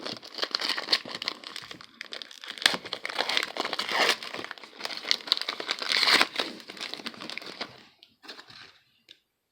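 Trading card pack wrapper crinkling and being torn open, with dense crackling that dies away about eight seconds in.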